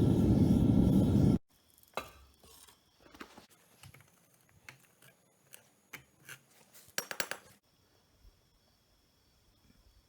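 A loud, steady burner roar that cuts off abruptly, followed by scattered light metallic clinks and knocks, a quick cluster of them near the middle.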